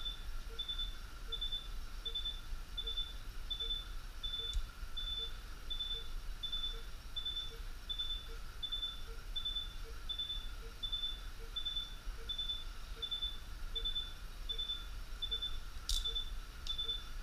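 Anaesthesia patient monitor sounding its pulse beep, a short high beep repeating evenly about four times every three seconds, in time with the anaesthetised dog's heartbeat. Under it runs a steady hum of operating-room equipment, and a sharp click sounds near the end.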